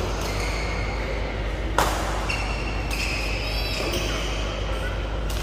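Badminton rally: a few sharp racket hits on the shuttlecock, the loudest about two seconds in, with brief high squeaks of court shoes in between.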